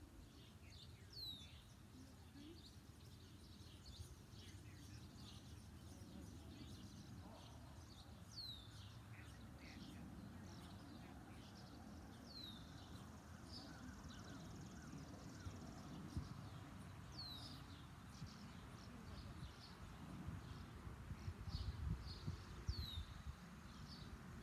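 Faint birdsong: many short high chirps, with one clear downward-sweeping call repeated every four to five seconds. Under it runs a low rumble of background noise that comes in stronger bursts near the end.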